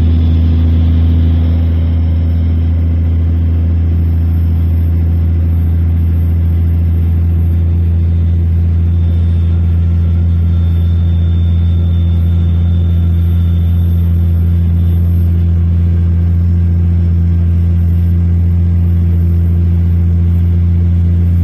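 Diesel vehicle's engine and road noise heard from inside the cab while driving at a steady speed: an even, low drone.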